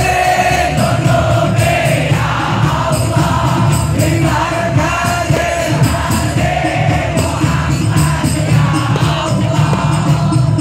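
A large crowd singing the qiyam, a devotional song to the Prophet sung standing, together with a lead voice over a steady drum beat.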